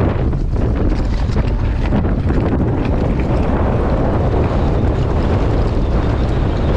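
Strong gale buffeting the microphone: a loud, steady low rumble of wind noise.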